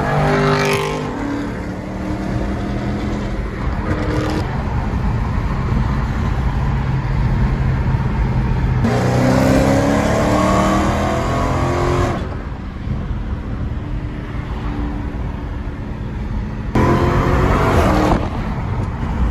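Dodge Charger V8 heard from inside the cabin at highway speed, running steadily, then accelerating hard with a rising pitch about nine seconds in and again briefly near the end.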